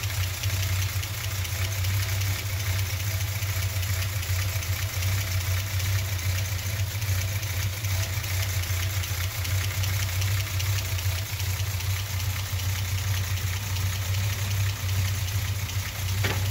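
Chrysler slant six inline-six engine idling steadily while still warming up after a cold start, its open valve train ticking fast and evenly. The valve lash is set at six and eight thousandths, which the owner finds leaves a little ticking that he means to tighten out.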